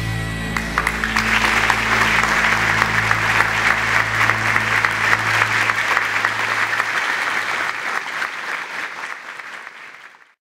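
A large group of aikido students clapping together: dense applause that swells about a second in and fades away near the end, over background music.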